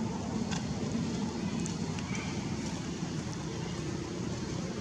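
Steady low engine rumble of a motor vehicle running, with a few faint clicks.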